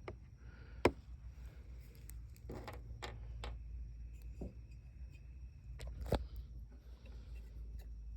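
Scattered light clicks and knocks of metal parts and tools being handled while a dishwasher door is worked on, the sharpest about six seconds in, over a steady low hum.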